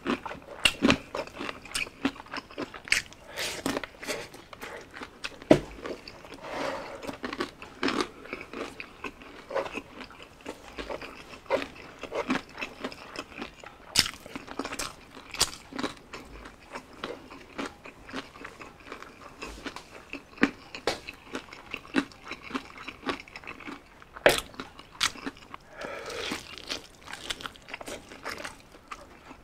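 Biting and chewing crispy breaded fried chicken: many irregular sharp crunches.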